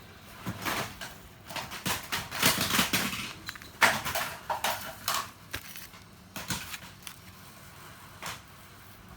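Handling noises: irregular scrapes, clicks and knocks, busiest in the first half and sparser towards the end.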